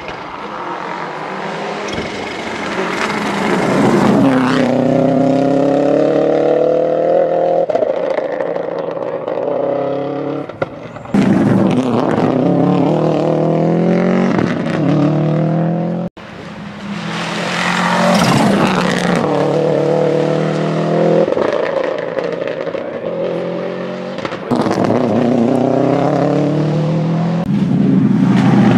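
Subaru Impreza GT Turbo rally car's turbocharged flat-four engine at full throttle as it passes, its revs climbing and dropping with each gear change. The sound cuts off abruptly twice, between separate passes.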